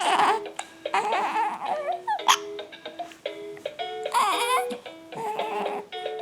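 Electronic tune from a baby's rainforest-themed activity mat, a simple melody of held notes, with short recorded animal calls played over it at intervals.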